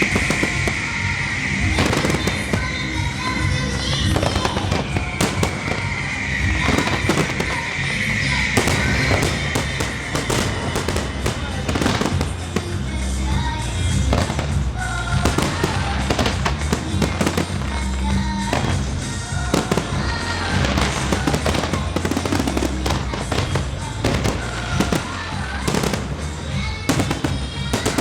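Aerial fireworks display: a dense run of sharp bangs and crackling bursts going off one after another, with spells of hissing crackle near the start and again around six seconds in.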